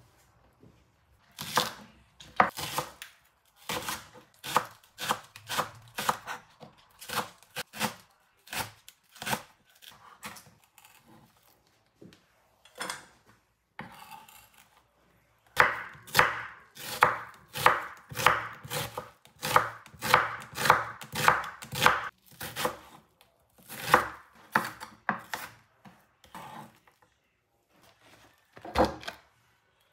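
Kitchen knife slicing spring onions on a wooden cutting board: a series of sharp knife strikes against the wood, slower at first, then a quicker, louder run in the middle, with pauses between runs.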